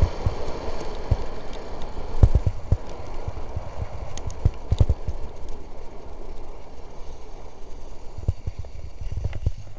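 Skis running over packed snow with wind rushing across the helmet-camera microphone, punctuated by irregular deep knocks as the skis hit bumps. The wind rush fades as the skier slows.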